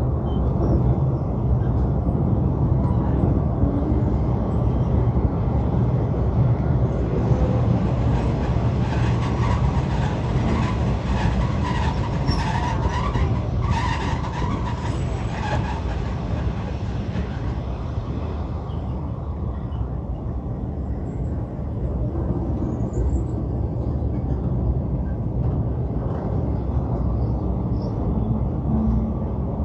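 A passenger train running at a steady pace, its wheels rumbling continuously on the rails. For several seconds in the middle it rattles with close, regular clicks and a higher whine.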